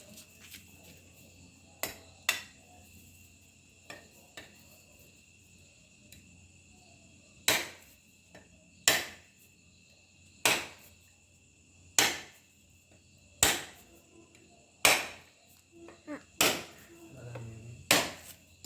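A whole coconut being struck hard and repeatedly to crack it open: sharp single knocks about every second and a half, after a few lighter taps in the first seconds.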